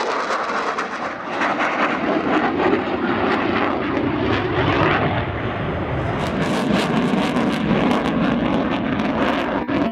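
F-16 fighter jet engine noise as the jet flies a display pass: a loud, steady rush. From about six seconds in it takes on a crackling edge.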